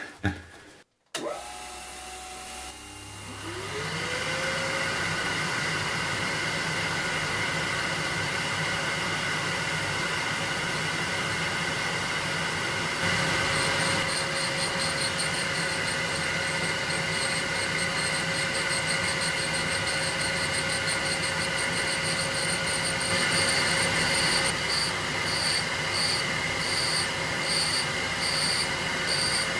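LIP 515 surface grinder spindle starting up, its hum rising in pitch for a few seconds and then running steady. From about halfway, a diamond on an angle dresser scrapes across the spinning grinding wheel's face with a high, rhythmic screech, dressing a 30-degree taper onto the wheel.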